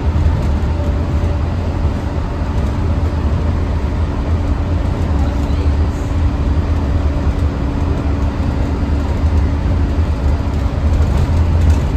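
Bombardier Mark VI monorail heard from inside the car while travelling: a steady low rumble from the running gear, with a faint steady hum through the middle.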